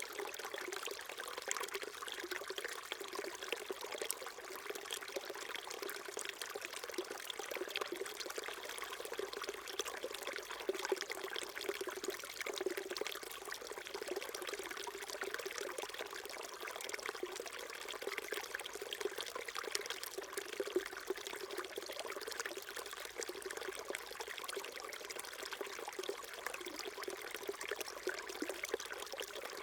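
A small mountain stream babbling and trickling over rocks, a steady continuous flow of water.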